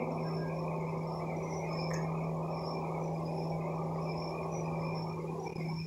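A steady low hum with a fainter high-pitched whine above it.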